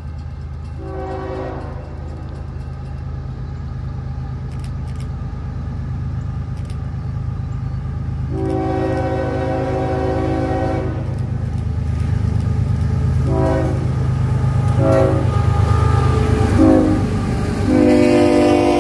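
Diesel locomotive approaching, its low engine rumble growing steadily louder, while it sounds its multi-note air horn: a short blast about a second in, a long blast around eight seconds in, three short blasts, then another long blast near the end.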